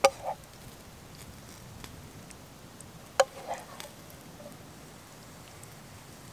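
A wooden spoon knocking against a metal frying pan while food is served. There are two sharp knocks about three seconds apart, the second ringing briefly, each followed by a few softer taps. It is quiet in between.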